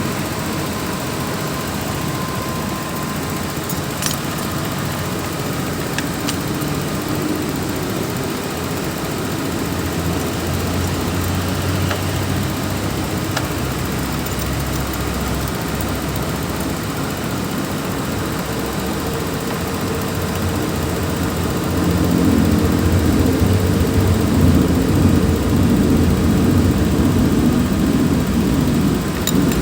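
Car engine idling with the aircon, headlights and high beam switched on to load the charging system during a battery and alternator test. About two-thirds of the way through the running gets louder and heavier. The test shows only about 12 volts where 13 is normal, which the technician takes for a weak alternator.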